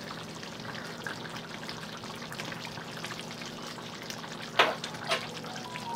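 Thick green salsa with beef and corn simmering in an open pan: a steady fine sizzle with many small pops and bubbles. Two brief louder sounds come about four and a half and five seconds in.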